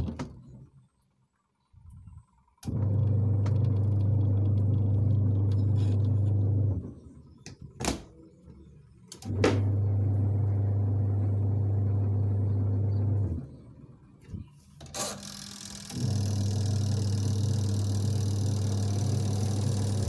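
Sharp Aqua Magic twin-tub washing machine motor running with a steady low hum. It goes in three runs of about four seconds, stopping and starting again after pauses of a few seconds, with sharp clicks around the restarts.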